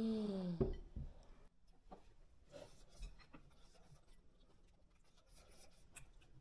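A short voiced hum at the very start, then soft scattered clicks and scraping from eating at a table: utensils and food being handled and chewed.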